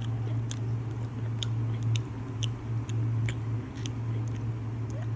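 A steady low hum under several light, sharp ticks from fingers handling a paper flap on a notebook page.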